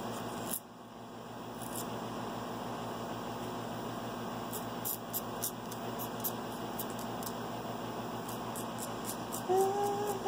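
Short scraping strokes of a nail file on a toenail, a quick irregular series of rasps. Near the end a cat meows once.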